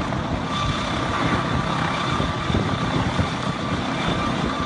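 Helicopter running steadily in a hover: a dense rotor and engine rumble with a thin, steady whine above it.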